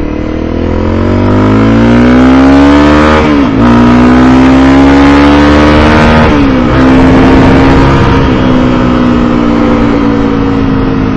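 Motorcycle engine accelerating through the gears: the pitch rises, drops at an upshift about three and a half seconds in, rises again, drops at a second upshift about six and a half seconds in, then holds nearly steady and eases slightly.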